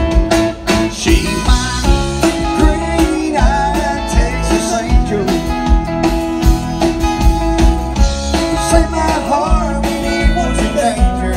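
Live country-rock band playing an instrumental passage: electric guitar over a steady drum beat.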